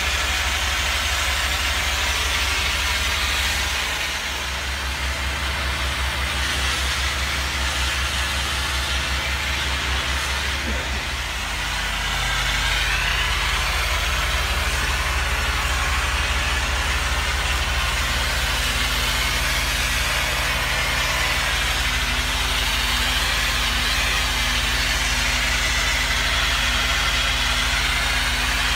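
Pressure washer's engine running steadily under the continuous hiss of the water spray from the rinsing wand. The engine's note shifts slightly about twelve seconds in.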